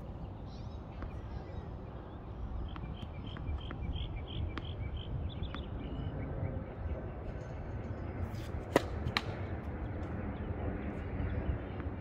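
Outdoor ambience with a steady low rumble. A bird chirps in a quick run of about eight short notes a few seconds in, and about three-quarters of the way through come two sharp knocks close together: a tennis ball bounced on the hard court before a serve.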